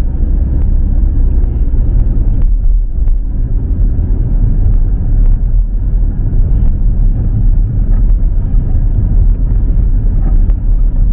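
Car driving at road speed, a steady low rumble of road and engine noise heard from inside the cabin.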